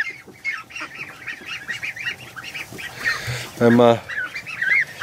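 Young geese peeping over and over in short high calls, with one loud, low honk about three and a half seconds in.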